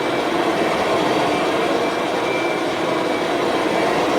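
Kirby Sentria upright vacuum cleaner running steadily: an even motor-and-fan rush with a faint high whine over it.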